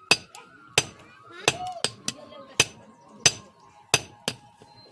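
Blacksmith's hammer striking steel on an anvil while forging a chisel: about eight sharp blows in a steady rhythm, roughly one every two-thirds of a second, with a faint metallic ring between blows.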